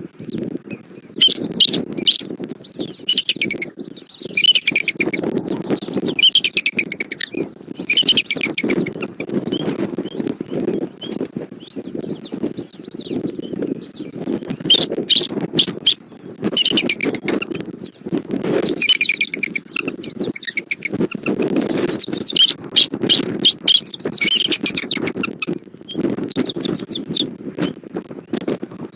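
Bald eagles calling in repeated bursts of high, squeaky chirps, over a steady low rumble of strong wind on the microphone.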